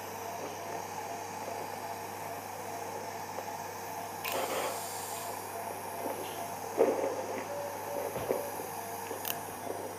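Operating-theatre background of steady equipment hum and hiss, with a few short rustles and a sharp click near the end as suture and surgical instruments are handled.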